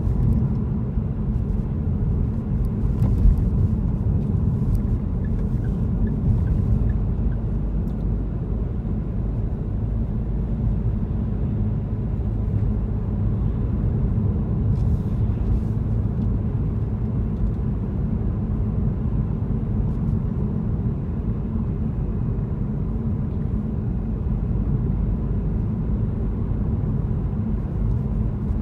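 Steady low rumble of a car on the move: engine and road noise, with no change in pace.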